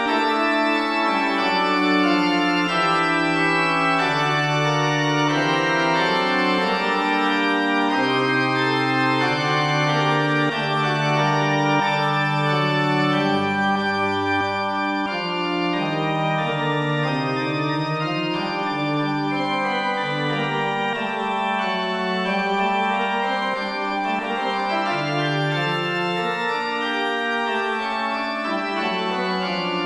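Synthesized pipe organ, a software MIDI rendering, playing a slow polyphonic ricercare in sustained, overlapping lines. Four voices weave together, and the texture thins to two voices near the end.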